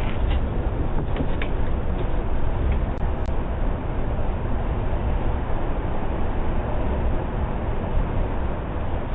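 Steady rushing noise through a doorbell camera's microphone, heaviest at the low end, with a few faint clicks.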